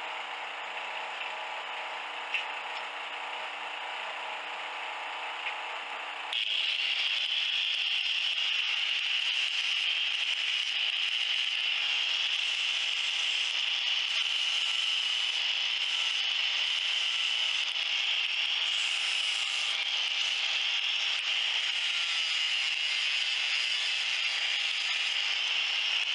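An electric angle grinder grinding metal, starting suddenly about six seconds in and then running loud and steady. Before that there is only a quieter steady hum.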